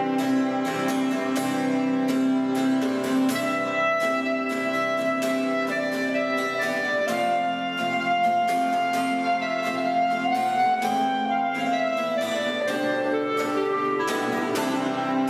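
Instrumental background music: held melody notes over a steady rhythmic pulse.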